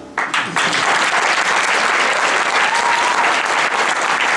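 Audience applauding, breaking out just after the song's final chord and then holding steady.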